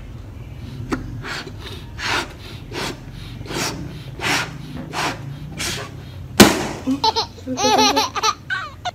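A rubber balloon being blown up with quick repeated breaths, then bursting with a sudden loud bang about six and a half seconds in, followed by a man laughing.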